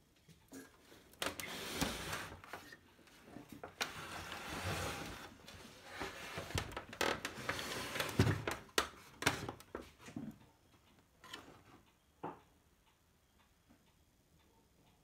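Scraping, rattling and knocks of a CRT television chassis, picture tube and circuit board, being moved and set down on a wooden workbench. The handling noise eases off about twelve seconds in, leaving only a few faint knocks.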